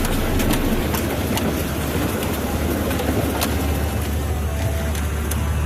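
Vehicle engine running steadily while driving through floodwater at a river crossing. A rushing rumble comes with it, broken by scattered sharp clicks.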